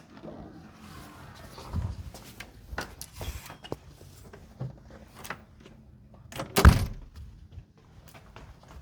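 Objects being handled at close range: scattered clicks, knocks and a light rustle, with one loud thump about two-thirds of the way through.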